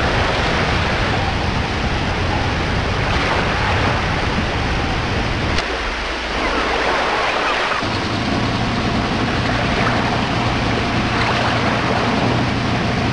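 Wind and sea wash heard from a boat at sea, with a steady low engine hum underneath that drops out for about two seconds midway.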